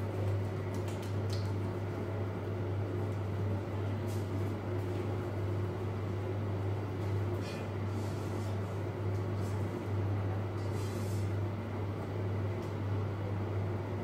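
A steady low hum fills the room, with a few faint, brief swishes of hands rubbing together with alcohol hand gel.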